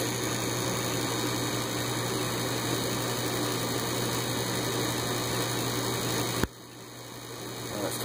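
Gas furnace draft inducer fan motor running steadily with an electrical hum during the ignition sequence, while the hot surface igniter slowly heats. About six and a half seconds in comes a sharp click, after which the sound drops abruptly and builds back up.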